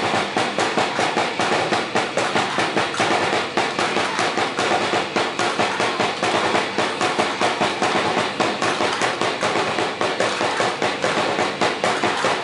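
Rhythmic percussion accompanying a Sinulog dance: a fast, steady beat of hard hits.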